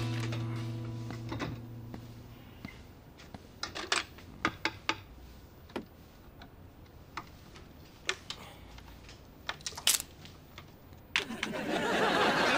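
A sitcom's guitar scene-change music fades out. Then scattered light clicks and taps follow, typical of office typing. About eleven seconds in, a studio audience starts laughing.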